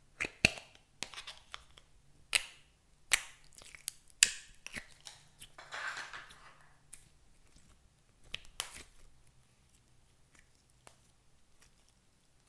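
Plastic slime tub's lid clicking and snapping as it is pried open, then wet squishing of clear jelly slime with beads as it is pulled out and handled, with a few more sticky clicks.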